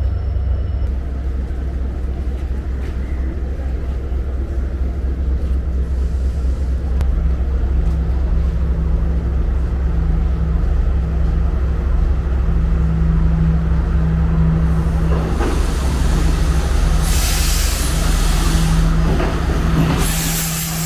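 Passenger train running, a steady low rumble with an even hum throughout. Two bursts of hiss come near the end.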